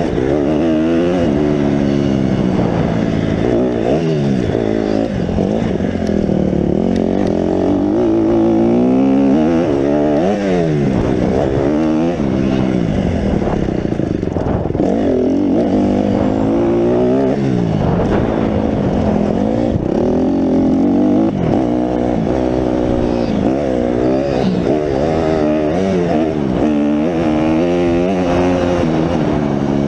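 Honda motocross bike engine revving hard and easing off again and again as it is ridden around a dirt track, its pitch climbing and dropping many times with gear changes, jumps and corners.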